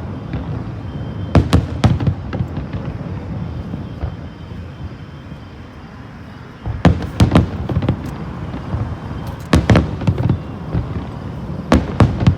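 Fireworks display: aerial shells bursting in clusters of sharp bangs, with a lull in the middle, then a dense run of bursts from about seven seconds in that carries on to the end.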